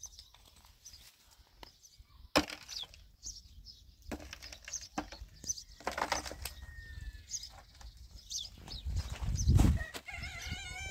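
Lumps of coal clicking and knocking as they are picked from gravelly ground and dropped into a metal bucket, with small birds chirping. A louder low rustle comes about nine seconds in as the bucket is lifted, and near the end a chicken calls with a drawn-out, falling cry.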